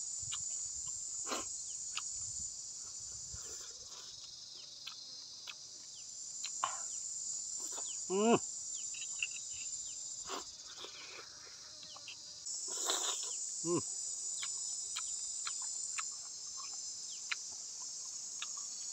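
Steady high-pitched insect chorus, crickets chirring without a break and growing louder about two thirds of the way through. Scattered short clicks and a brief rising pitched sound about eight seconds in are heard over it.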